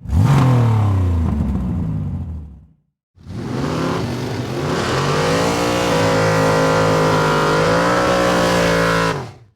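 Car engine revving hard. A short rev falls away, then after a sudden cut the engine is held at high revs for about six seconds, wavering a little, before cutting off.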